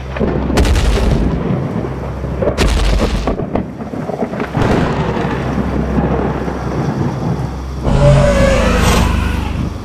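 Thunderstorm sound effects: a deep rumble of thunder under rain, with sudden loud thunder cracks about half a second, two and a half and four and a half seconds in, and a louder swell near the end.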